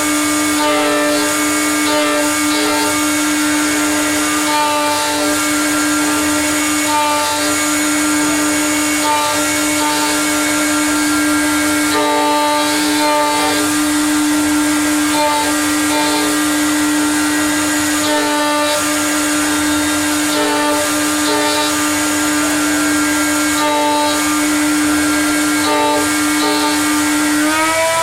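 CNC mill's spindle motor running at a steady high pitch while it cuts aluminium, with shorter tones from the axis drives coming and going. Near the end the pitch steps up.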